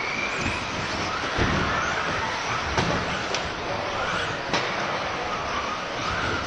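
Electric 1:10 4WD off-road buggies racing: their brushless motors whine, rising and falling in pitch with the throttle, with a few sharp knocks as the cars land and hit the track.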